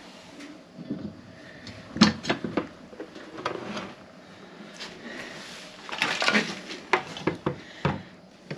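Irregular metallic clinks, knocks and scrapes of a small circulator pump motor and its mounting bracket being handled and fitted together. The sharpest knock comes about two seconds in, with a busier cluster of clatter around six seconds in.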